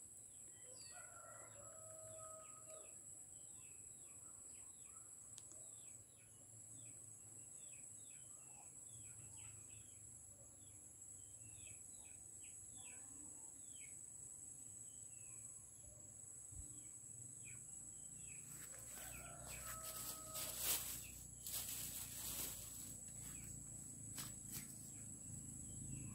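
Faint rural ambience: small birds chirping over and over, with insects buzzing steadily at a high pitch. A rooster crows twice, once near the start and once about three-quarters of the way through. In the last several seconds there is rustling and handling noise with a sharp click.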